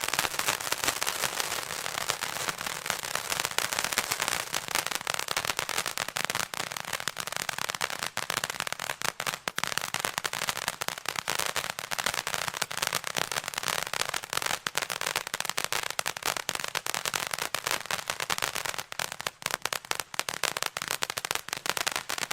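Golden Tiger 'Popcorn Fountain' firework fountain crackling with a dense stream of rapid pops over a hiss. It thins out after the first few seconds into more separate, irregular popping.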